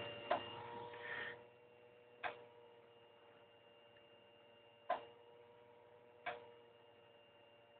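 Four sharp clicks at uneven intervals over a faint steady electrical hum from a BGA rework machine with its heaters running at full power.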